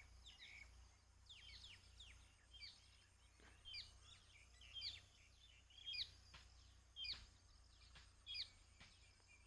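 Faint bird chirps, short quick notes repeating about once or twice a second, over a low steady hum.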